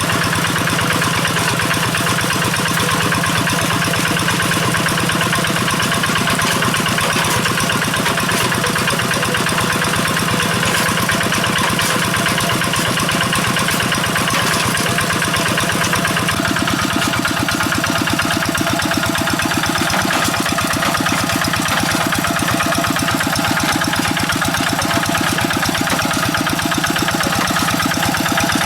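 Kubota RD85Di2S single-cylinder diesel engine of a Quick G1000 two-wheel hand tractor running steadily with a fast, even beat. The tone changes slightly about two-thirds of the way through.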